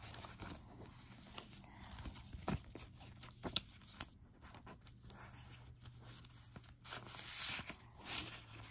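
Sticker sheets and their packaging being handled: light rustling with scattered soft taps and clicks, and a longer rustle about seven seconds in.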